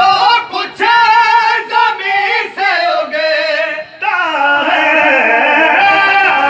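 Male devotional singing: an Urdu recitation in praise of Imam Hussain, sung into a microphone with a wavering, ornamented melody. It comes in phrases with short breaks, and the sound gets fuller about four seconds in.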